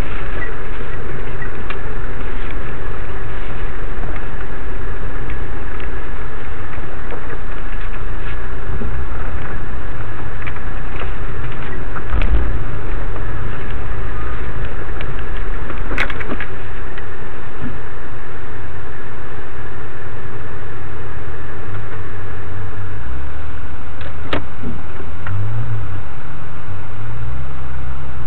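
Off-road vehicle engine running loud and steady with a heavy low rumble, with two sharp knocks, one about halfway through and another near the end.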